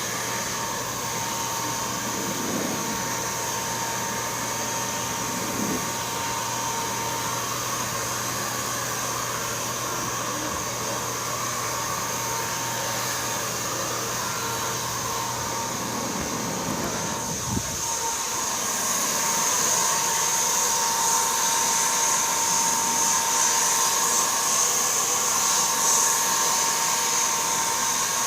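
Electric paint spray gun's motor running steadily with a constant whine and a hiss. After a brief knock about two-thirds of the way through, it gets louder.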